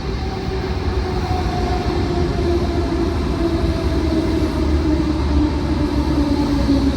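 A Class 480 electric train arriving, its rumble overlaid by a two-note whine that falls slowly in pitch as the train slows down.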